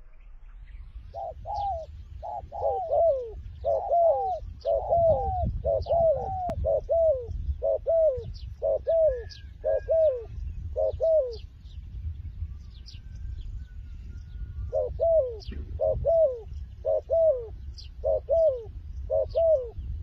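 Spotted dove calling: a long series of short, downward-sliding coos, often in quick pairs. The coos stop about halfway through and start again a few seconds later.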